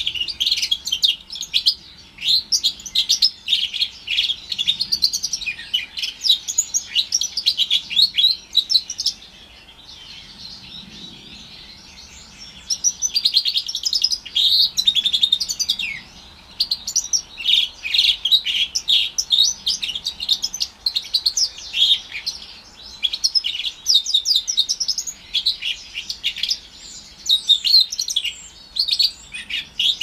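A four-month-old house finch × Timbrado canary hybrid (mule) is singing in long phrases of rapid, high twittering notes, with a pause of about three seconds roughly a third of the way in.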